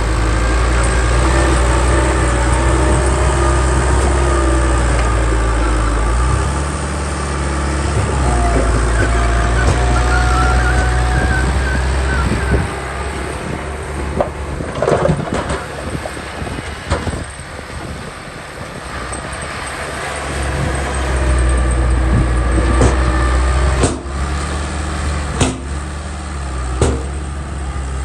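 Heavy diesel machinery running, its engine hum rising and falling in level, with wavering squeals early on and several sharp clanks in the second half.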